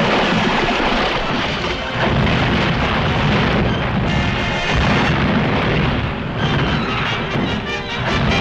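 Cartoon action score playing under a dense, continuous din of crashing and rumbling sound effects as the monster smashes a bridge tower.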